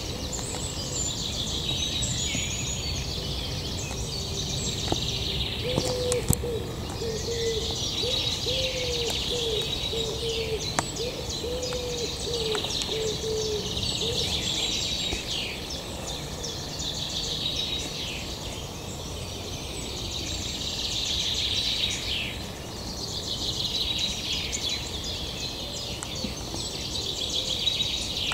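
Woodland bird chorus: several birds singing and chirping at once, with a run of short low hooting notes repeating for several seconds in the middle.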